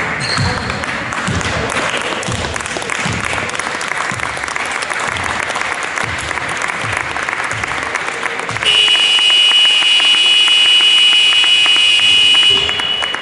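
Clapping and crowd noise, then a basketball scoreboard buzzer sounds one steady, loud, high electronic tone for about four seconds.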